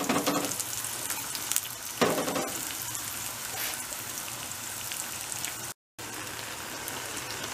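Katmer pastry dough frying in hot oil in a stainless steel pan: a steady high sizzle. There is a single knock about two seconds in, and the sound cuts out for a moment shortly before the end.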